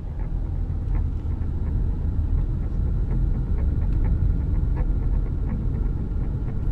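Car driving at low speed, heard from inside the cabin: a steady low rumble of engine and tyre noise, with a few faint ticks.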